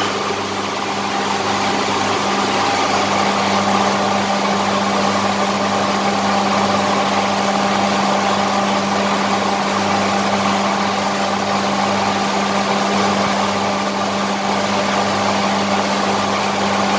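A motor running steadily, a constant hum with a strong low tone that does not change.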